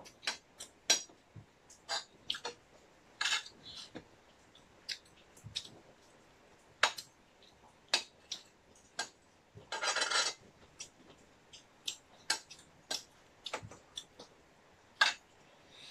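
Metal spoon and fork clinking and scraping on ceramic plates while eating: irregular sharp clinks, a few each second, with one longer scraping sound about ten seconds in.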